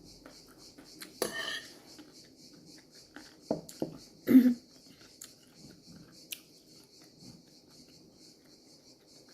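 Cutlery clinking and scraping on a plate during a meal: scattered light clicks, a short scrape about a second in, and a louder clunk about four and a half seconds in.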